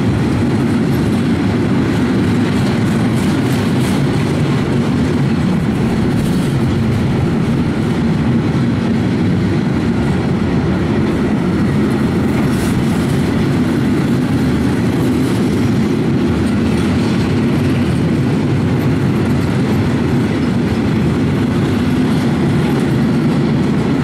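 Freight train of cement hopper wagons rolling past close by: loud, steady noise of steel wheels running on the rails.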